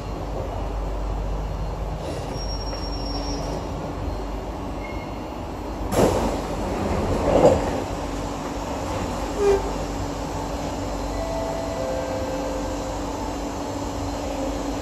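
SMRT C151A metro train coming to a stop inside the car, with a steady hum under the running noise, a sharp loud noise about six seconds in, and the doors sliding open soon after.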